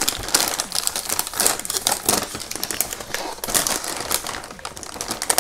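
Plastic snack bag of corn sticks crinkling and crackling as hands handle and open it, a dense run of crackles that grows fainter near the end.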